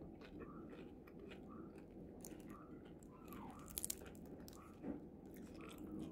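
A person chewing a crispy fried turon (banana spring roll), with faint crackly crunches of the fried wrapper; a quick run of three louder crunches comes about four seconds in.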